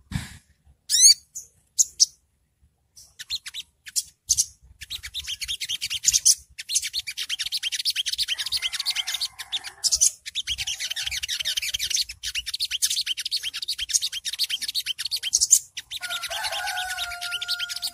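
Olive-backed sunbird giving its fast 'ngriwik' twitter. A few separate high chirps come first, then from about five seconds in a rapid, high-pitched chattering trill runs on, broken only briefly twice. Near the end a lower, steady two-note tone sounds beneath it.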